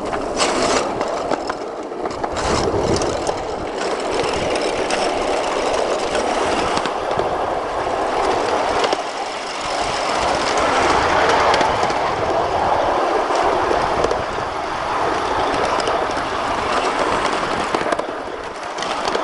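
Ride-on miniature railway locomotive and train rolling along the track: a steady running noise of wheels on rail, with a few sharp clicks over rail joints and switches in the first few seconds.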